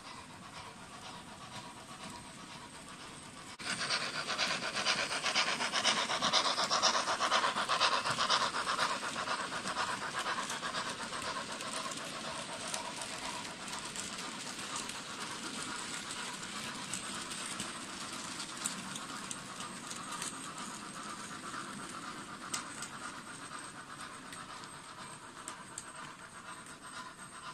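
Model goods train running past on the layout's mainline, its wheels and wagons rattling over the track with a dense, fast ticking from the rail joints. It starts suddenly about three and a half seconds in and fades slowly as the train moves away.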